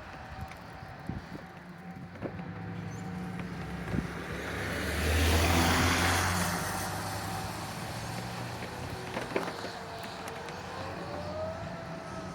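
A road vehicle passes by, its engine and tyre noise swelling to a peak about halfway through and then fading. Near the end an outdoor warning siren's tone rises in pitch, then slowly falls.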